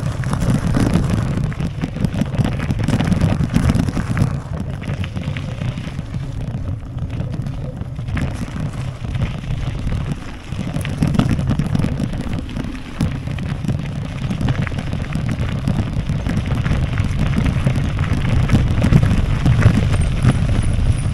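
Wind buffeting the microphone of a camera carried on a bicycle, with the rumble and jolts of riding over an unpaved track: a loud, uneven low rumble throughout.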